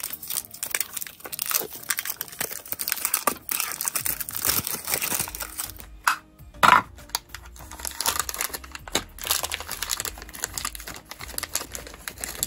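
Plastic wrap and a cardboard Roblox blind box being unwrapped and opened by hand, crinkling and rustling with many small clicks, then a foil bag being crinkled open. There is one loud short rip a little past halfway.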